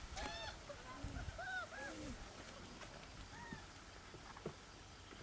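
Four-and-a-half-week-old puppies whining and yelping in short, arched, high-pitched cries, many in the first two seconds, thinning out towards the end.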